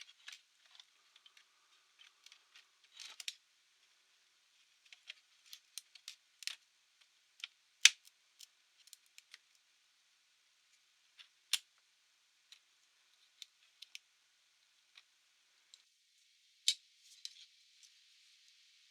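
Irregular small clicks and taps of a Panasonic Toughbook CF-C2 laptop and small tools being handled during a memory upgrade. The sharpest click comes about eight seconds in, with other louder ones near eleven and a half and seventeen seconds.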